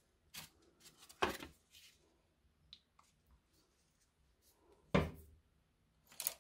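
Craft supplies, among them a black plastic palette tray, being handled and set down on a wooden tabletop: a few knocks and clatters, the loudest about a second in and about five seconds in, with light clicks between.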